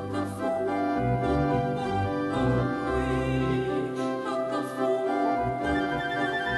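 Live gospel choral music: a female soloist singing with a choir over keyboard and orchestral accompaniment, the bass line moving note by note beneath sustained chords.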